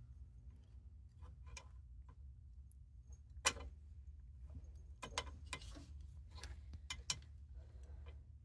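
Knife blade picking at tangled synthetic winch rope on the winch drum: light, scattered clicks and taps as the steel tip knocks against the drum and fairlead, the sharpest about halfway through, over a low steady rumble.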